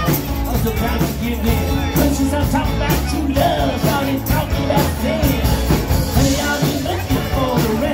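A live rock band playing, with a singer carrying the melody over the band.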